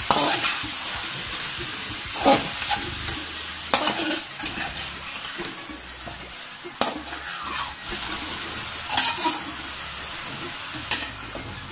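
Fish pieces and spring onions frying in oil in a karahi with a steady sizzle, while a metal spatula stirs them, scraping and knocking against the pan several times.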